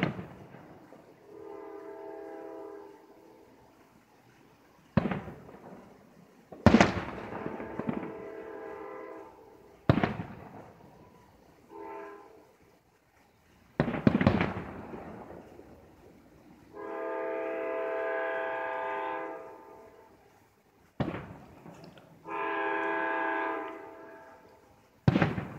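Fireworks shells bursting with sharp bangs, seven in all, each trailing off. Between the bangs a horn sounds five times, several steady tones at once, in blasts of up to about three seconds, one of them short.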